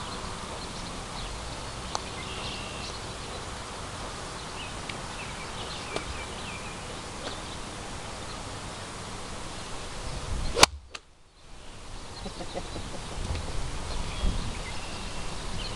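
A golf wedge striking a ball on a full swing: one sharp, loud click about ten and a half seconds in, over a steady outdoor background.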